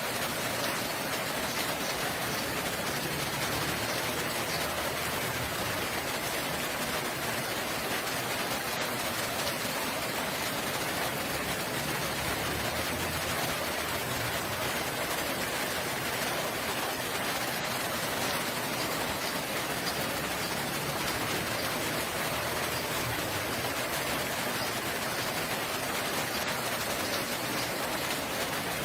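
Steady rain falling, an even hiss with no breaks or rises.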